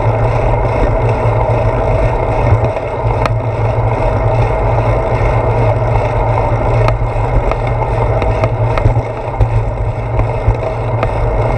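Steady low rumble of wind and road noise on a handlebar-mounted GoPro of a bicycle riding along a road, with a few faint clicks.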